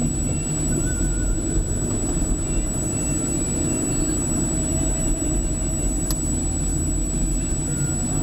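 Steady engine and road rumble of a car driving on wet asphalt, heard from inside the cabin through a dashcam's built-in microphone. A thin, steady high-pitched tone runs through it.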